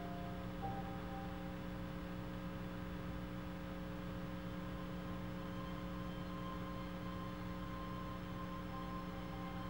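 Steady electrical hum, made up of several unchanging low tones, with a few faint held higher tones that come and go above it.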